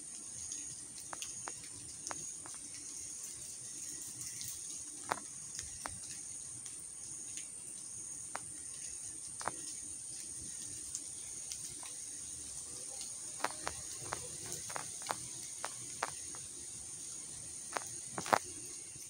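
Outdoor ambience: a steady high-pitched insect hum, with scattered light clicks and taps, a louder cluster near the end.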